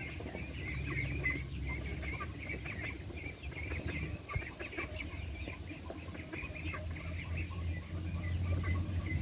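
Birds calling outdoors, many short repeated calls, over a steady low rumble of wind on the microphone.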